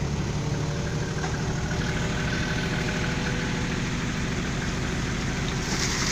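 Dump truck engine running steadily.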